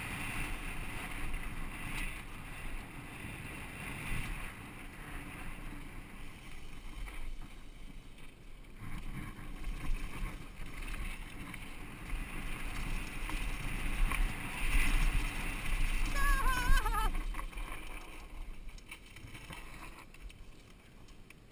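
Ride noise of a downhill mountain bike on a dry dirt trail, heard from a helmet-mounted camera: wind buffeting the microphone over a steady rumble and rattle from the tyres and bike on the ground, with a short wavering high tone about three-quarters of the way through.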